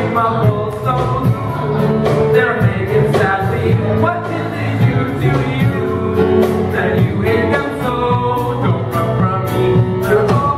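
Male voices singing a rock-style musical theatre number, over instrumental accompaniment with a steady drum beat.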